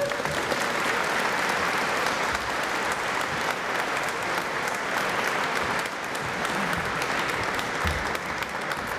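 Audience applauding: many hands clapping in a steady, dense patter that eases slightly in the last few seconds.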